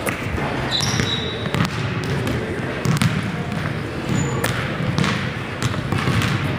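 Basketballs bouncing on a hardwood gym floor, irregular thuds from more than one ball, with a few short high sneaker squeaks.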